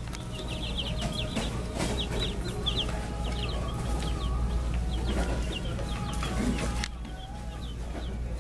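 Production Red baby chicks in a brooder tub peeping: many short, high cheeps, each falling quickly in pitch, coming in quick overlapping clusters.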